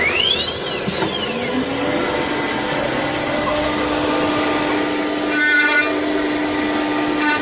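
A 9 kW HSD air-cooled spindle on a CNC router spinning up: a whine rises in pitch over the first two seconds, then holds as a steady tone at running speed. Constant loud machine noise runs underneath.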